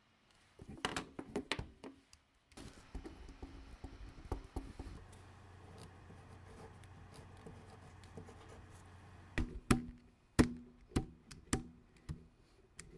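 Keys of a TI-84 Plus CE graphing calculator being pressed in quick, irregular runs of sharp taps: one run about a second in, more through the first five seconds, and the loudest run near the end. A low steady hum sits under the middle stretch.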